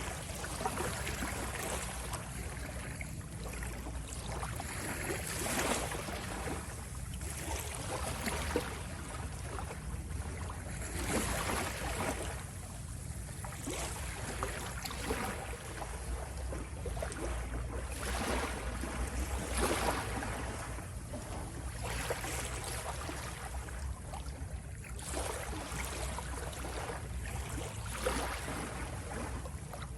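Sea waves washing in, in irregular surges every second or two, over a steady low rumble.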